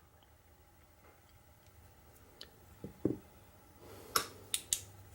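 A handful of faint, short clicks and taps from small lock parts and tools being handled while a Medeco lock is taken apart. They come singly about two and a half and three seconds in, then three more just past four seconds.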